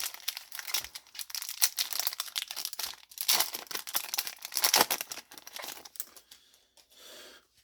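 Foil Yu-Gi-Oh booster pack wrapper crinkling and tearing as it is opened. The dense crackling runs for about six seconds and thins out toward the end.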